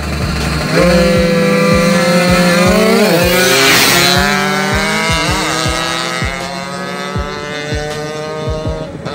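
Small motorcycle engine accelerating from about a second in. Its pitch climbs steadily, drops sharply and climbs again about three seconds in and again about five seconds in, as the rider shifts up through the gears. A rush of noise swells and fades around the middle.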